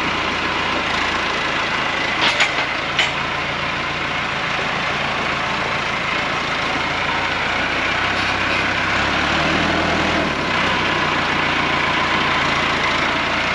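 Tractor engine running steadily, with two sharp clicks about two and three seconds in.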